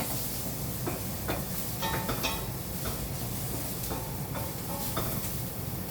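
Ginger, onion and garlic sizzling in hot oil in a pan, stirred with a utensil that clicks against the pan now and then.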